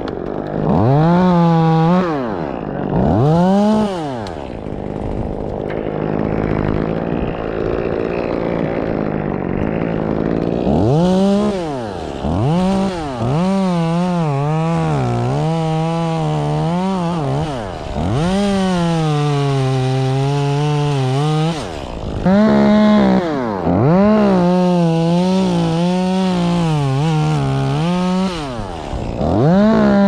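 Chainsaw revving up and falling back again and again, several times held at high revs for a few seconds with a wavering pitch as it cuts through cotoneaster wood.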